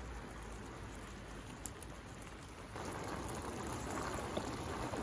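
Rain pattering on a cotton bell tent in a windstorm, a steady hiss that grows louder about three seconds in, with one sharp tick near the middle.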